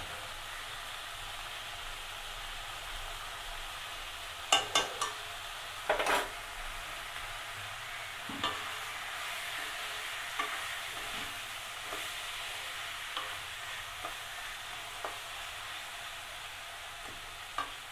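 Capsicum and onion sizzling in hot oil in a metal kadhai while a slotted spatula stirs them and strikes the pan. A few sharp knocks come about four to six seconds in, then lighter taps every second or two.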